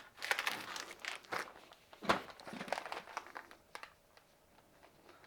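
Antibacterial wipe crinkling and rubbing as glue is wiped off: a run of irregular scratchy rustles, busiest in the first three seconds, then dying away.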